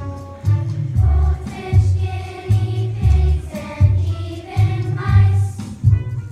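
Background music: a choir singing over a steady, pulsing bass beat.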